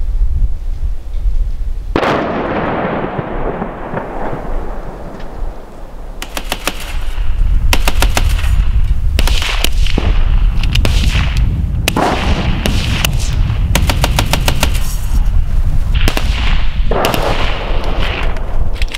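Automatic gunfire: a single loud report with a long echoing tail about two seconds in, then from about six seconds on a run of rapid bursts from a machine gun, one after another with short gaps. Wind rumbles on the microphone before the first report.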